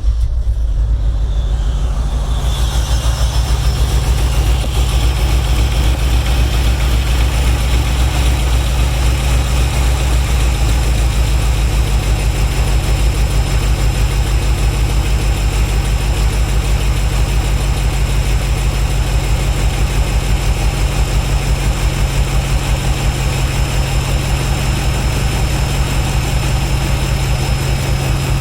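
1996 Chevrolet Impala SS's V8 catching at once and running at a steady, pulsing idle. The owner reports the fuel system still shows no fuel pressure and the engine tends to cut out after running a while.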